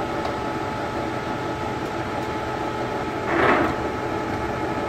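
Vanguard CW61 40" x 80" lathe running, with a steady hum of several held tones from its drive and gearbox. About three and a half seconds in, a short louder rasp lasting about half a second comes as a gearbox lever on the headstock is worked.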